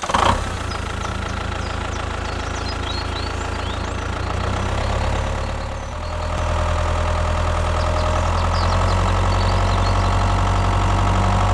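Tractor engine idling steadily, a little louder from about six seconds in.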